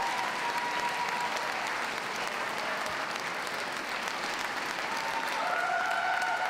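Ringside audience applauding steadily, a continuous patter of many hands clapping.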